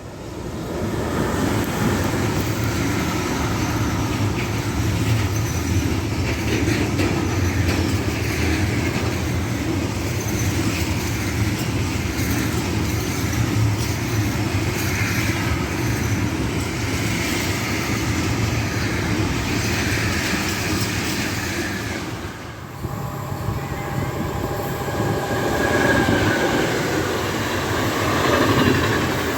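Train running past on the line, wheels rumbling and clattering over the rails with occasional squealing tones. The sound drops briefly about 22 seconds in, then the rumble picks up again.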